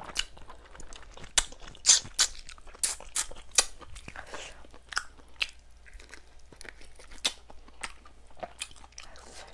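Chewing and biting into chicken close to the microphone, with irregular sharp crunches a few times a second.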